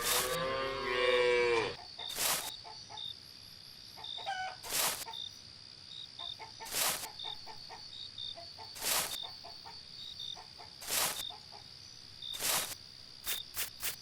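A cow mooing once, a long call lasting under two seconds at the start, followed by a few chicken clucks. Sharp clicks repeat about every two seconds throughout.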